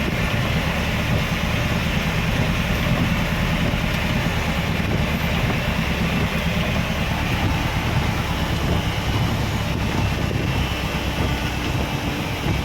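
Steady rumble of a car's engine and tyres heard inside the cabin while driving through heavy rain, with an even hiss of rain and road spray over it.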